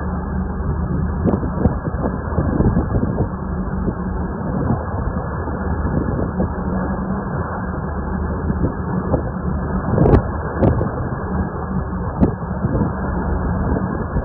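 Steady low hum of a boat engine under wind buffeting the microphone, with a few sharp knocks, the loudest about ten seconds in.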